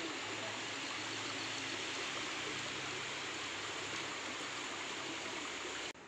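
Shallow forest stream running over rocks: a steady, even rush of water that cuts off suddenly near the end.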